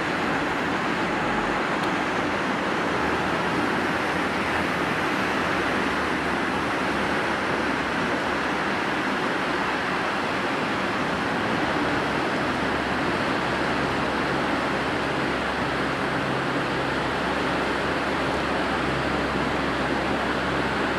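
Steady rush of fast-flowing floodwater: an even noise with no breaks.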